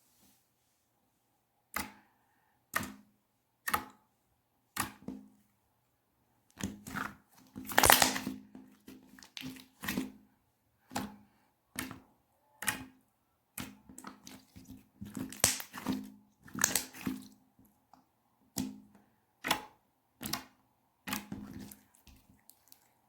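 Clear mixed slime squished and pressed by hand, making crackling, popping squelches. They come about once a second from about two seconds in, with busier, louder stretches in the middle.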